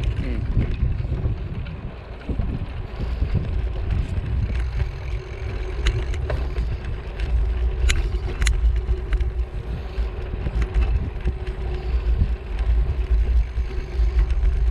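Wind buffeting the microphone of a camera on a moving bicycle, a heavy gusty rumble, with a few sharp clicks from the bike about six and eight seconds in and a faint steady hum from about four seconds on.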